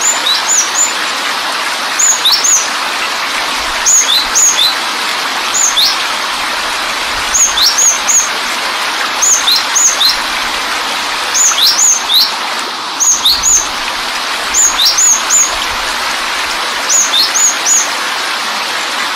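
Steady rush of a waterfall, with a small bird repeating a short, high chirping phrase (a few quick notes and an upward sweep) every one and a half to two seconds.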